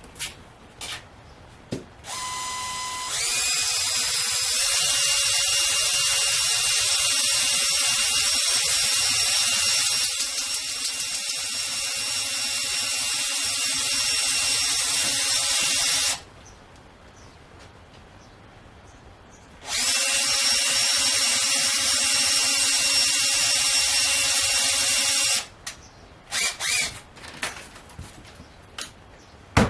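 Power drill spinning to twist three wires together into one strand. It runs steadily for about fourteen seconds, starting at a lower pitch for about a second before speeding up, stops, then runs again for about six seconds, with a few light clicks before and after.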